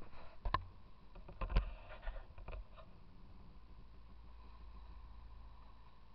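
Aboard a boat at sea: a few sharp knocks in the first couple of seconds, the loudest about a second and a half in, then a steady low rumble.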